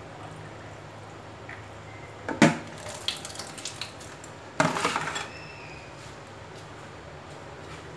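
Plastic colander holding raw chicken pieces knocking and clattering in a kitchen sink as it is picked up and moved: a sharp knock about two and a half seconds in, a few lighter knocks, then a second loud clatter about halfway through.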